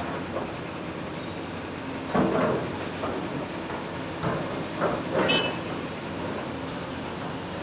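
Heavy diesel construction machinery running steadily. Several loud noisy surges of working noise come over it, about two seconds in, around four to five seconds in, and with a brief high squeal a little after five seconds.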